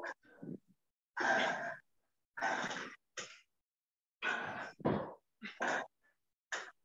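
A person breathing hard from exertion: about seven short, forceful exhales and gasps in an uneven rhythm, each cut off into dead silence by the video call's audio gating.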